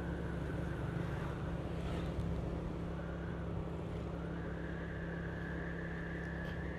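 Steady running noise of a vehicle being driven along a road: a low engine hum over road noise, with a faint higher whine that rises slightly about four seconds in.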